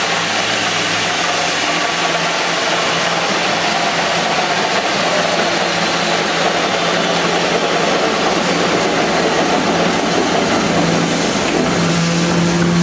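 Fein Grit GI150 belt grinder running with no workpiece: its electric motor and abrasive belt give a steady low hum over a broad hiss.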